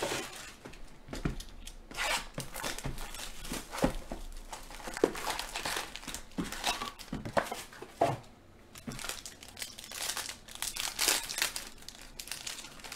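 Foil trading-card pack wrappers crinkling and tearing as they are handled and ripped open by hand, in irregular crackles with sharper clicks along with handling of the cardboard box.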